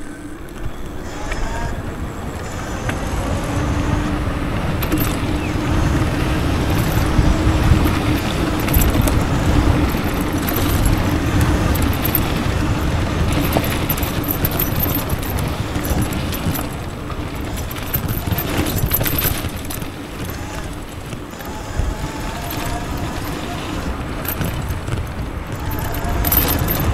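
Home-built 3000 W electric downhill bike riding along paths and dirt tracks: wind buffeting the microphone and tyres rolling over tarmac, dirt and gravel, with a faint electric-motor whine that rises and falls with speed.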